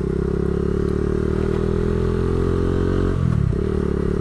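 Motorcycle engine and exhaust running under steady throttle while riding. About three seconds in, the revs drop sharply and then pick up again.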